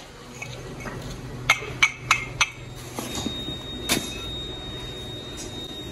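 Sharp ringing metallic knocks of a metal tool striking cast-iron cylinder sleeve castings: four quick strikes about a third of a second apart, then two more spaced out.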